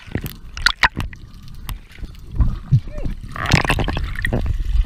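Water heard underwater around a diver: scattered sharp clicks and knocks with gurgling, and a dense burst of bubbling about three and a half seconds in.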